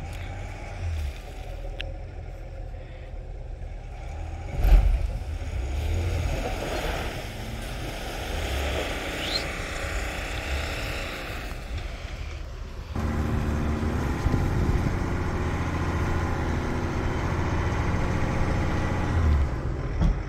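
Pickup truck engines revving as a GMC Sierra AT4 and a Ford F-150 on a tow strap work through deep snow, tyres spinning and throwing snow, with a sharp loud thump about five seconds in. About thirteen seconds in the sound changes abruptly to a louder, steadier engine running close by.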